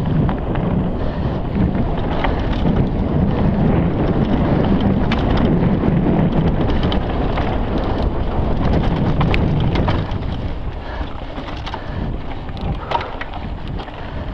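Wind buffeting the camera's microphone as a mountain bike rides a dirt trail, with scattered clicks and rattles from the bike and loose ground. The wind rush eases about ten seconds in.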